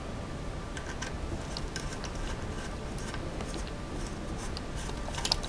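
Light, scattered clicks and ticks of a hex driver and small countersunk screws against an RC car's motor mount and chassis parts during hand assembly, starting about a second in and growing more frequent toward the end.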